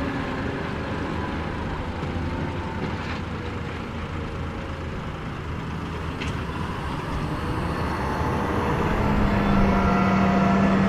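John Deere 9RX 830 tractor's diesel engine running under work, growing louder near the end as a steady low hum comes in.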